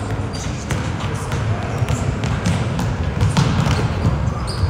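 Basketball bouncing on a gym floor during a game: irregular sharp thuds over steady crowd noise.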